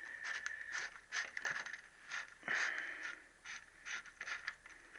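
Irregular metallic scrapes and clicks of a pinion puller being handled and fitted onto the crankshaft timing pinion of a Triumph T120R Bonneville engine, metal tool against gear and casing.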